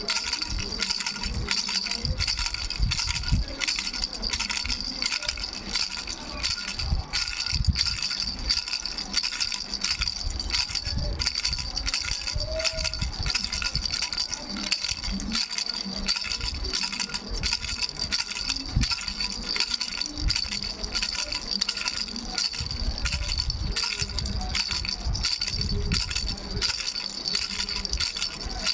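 Baby rattle with three bells shaken without pause: dense jingling with a steady high bell ring over it, and irregular low knocks.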